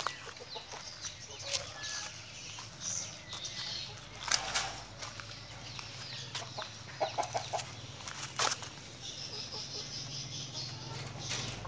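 Short bird calls and scattered sharp clicks and knocks over a low steady hum.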